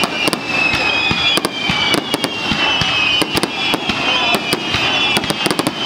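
Aerial fireworks finale: a dense, rapid barrage of bangs and crackles from shells bursting, with many overlapping high whistles sliding slightly downward in pitch.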